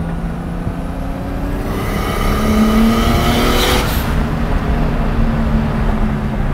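Turbocharged engine of a BMW 2002 with an E30 engine swap, heard from inside the cabin while driving. Its note climbs under throttle for a couple of seconds, with a hiss over the top, then drops about four seconds in and settles to a steady cruise.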